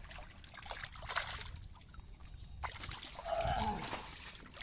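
Irregular splashing and sloshing of shallow water as crowded marble goby thrash in a tarp-lined tank while someone wades among them. A short high-pitched cry stands out about three seconds in.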